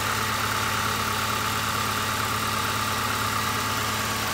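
Alfa Romeo Spider Series 4's twin-cam four-cylinder engine idling steadily.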